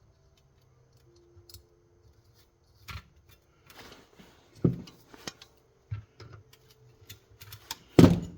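Small metal carburetor parts clicking and clinking as the carburetor is fitted back together by hand. Scattered light knocks come from about three seconds in, with a sharp knock near the end.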